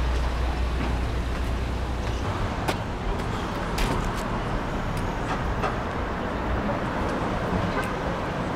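Street traffic noise: a steady wash of passing road vehicles with a deep engine rumble that drops away about two seconds in, and a few scattered clicks and knocks.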